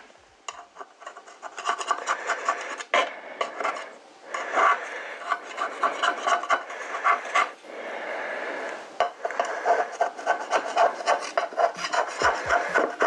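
A utensil scraping rapidly back and forth around a mince pie in a metal baking tin, working pastry loose that has stuck to the bottom of the tin. The strokes come several times a second, pausing briefly twice.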